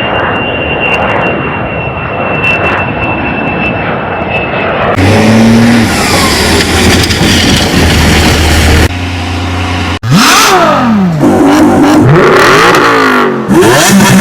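A string of short vehicle sound clips cut one after another: engines running, with a steady high whine over the first few seconds, then a deeper engine, then rising and falling pitch sweeps of revving from about ten seconds in.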